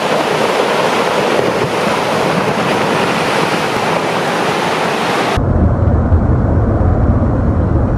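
Loud, steady rushing noise like wind or surf; about five seconds in it cuts sharply to a deep, low rumble.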